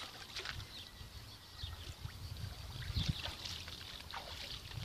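Faint splashing and sloshing of shallow water as a person wades and gropes in a concrete irrigation channel, with scattered small splashes over a low rumble.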